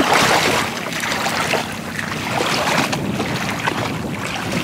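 Water sloshing and splashing as a person wades through shallow floodwater, pushing a small boat loaded with bamboo fish traps. Steady, with no single loud event.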